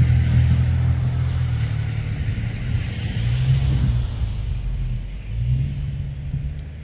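An engine running with a steady low hum, gradually fading as it moves away.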